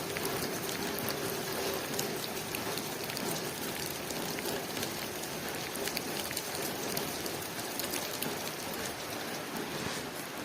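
Steady rain falling on a window pane: an even hiss with many small, quick drop taps.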